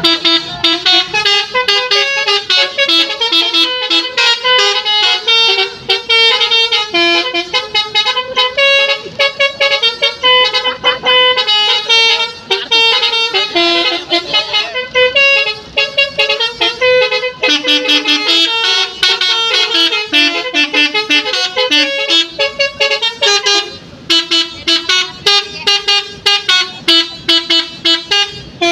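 Basuri multi-tone bus horns (telolet) playing a fast, continuous melody of short notes, with a brief break about 24 seconds in.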